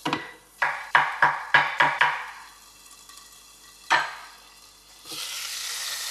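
Knife slicing a cucumber on a wooden cutting board: about six quick cuts in a row, then a single knock a couple of seconds later. Near the end a steady sizzle of an egg and feta frying in a pan starts up.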